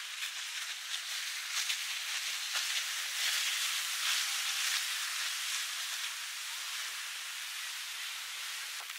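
Rain falling, a steady hiss that swells a little in the middle.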